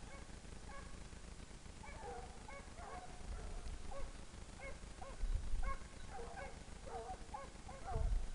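Two running hounds (chiens courants) baying in the distance, a string of short repeated bays while they follow game through the woods. Two low rumbles on the microphone break in, about five and eight seconds in.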